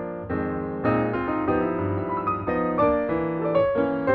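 Background piano music, a melody of quickly struck notes over a lower accompaniment.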